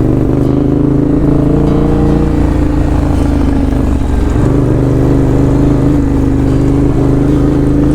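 Yamaha Ténéré 700's parallel-twin engine running at steady revs under way, its pitch holding level with a brief break about four seconds in.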